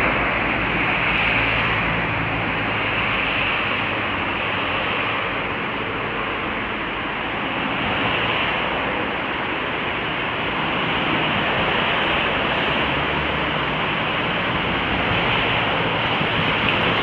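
Steady rushing noise of road traffic and wind on the microphone on a road bridge, with a faint low hum that comes and goes.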